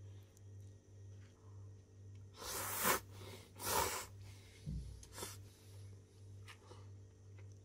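A person slurping instant ramen noodles from a cup: two loud, airy slurps of about half a second each near the middle, then a shorter one, over a steady low hum.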